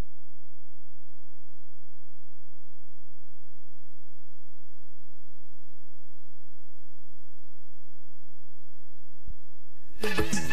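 Steady electrical hum, a buzz of several unchanging tones with nothing else over it; music starts again near the end.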